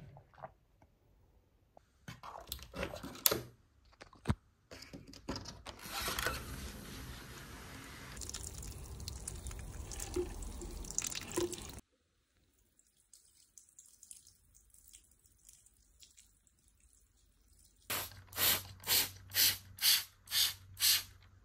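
Water pouring from a watering can's rose onto the soil of a potted plant, a steady splashing rush for about six seconds that stops abruptly. Near the end comes a run of about seven short sprays, about two a second.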